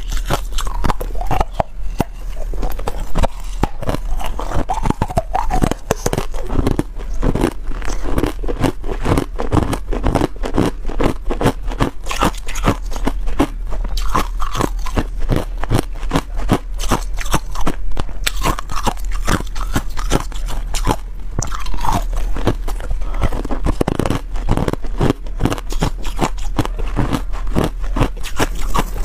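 Hard ice being chewed and crunched between the teeth close to the microphone: a rapid, unbroken run of crisp cracks and crunches.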